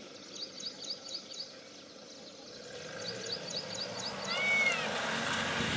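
Small birds chirping in quick runs of short high notes, with one arched call about four and a half seconds in. Under them, the low rumble of an off-road vehicle's engine grows louder in the second half.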